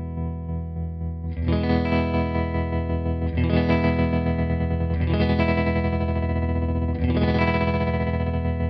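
Electric guitar chords through an EarthQuaker Devices Hummingbird Repeat Percussions tremolo, with its expression pedal rocked back to heel. Four chords are strummed about two seconds apart, and each rings out with a quick, even, choppy pulsing.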